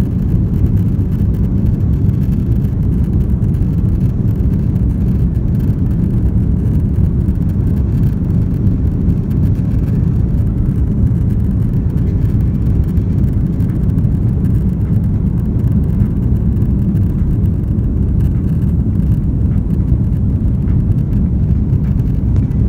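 Jet airliner cabin noise during the takeoff roll and liftoff: a loud, steady low rumble of the engines at takeoff power and the wheels on the runway, heard from inside the cabin.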